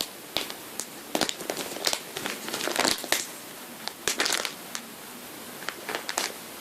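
Plastic packaging crinkling and crackling in irregular bursts as a squishy toy is handled.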